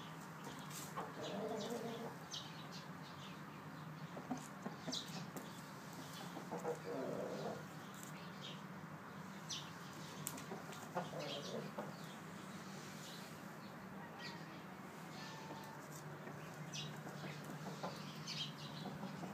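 Aseel rooster clucking a few times, short low calls spaced several seconds apart, with brief high chirps scattered throughout over a steady low hum.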